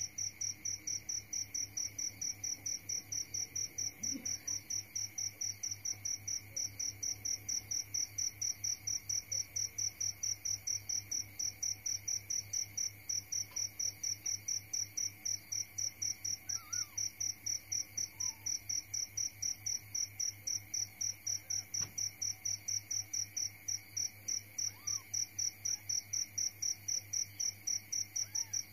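An insect chirping steadily in an even rhythm, about three high chirps a second, over a low steady hum.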